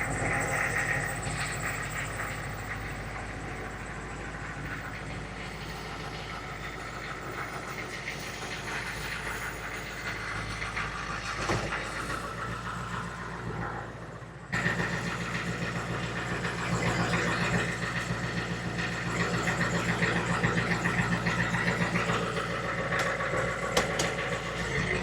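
A HMMWV's V8 diesel engine running steadily as the truck is driven. Partway through, it cuts abruptly to a louder, busier stretch of engine and drivetrain noise.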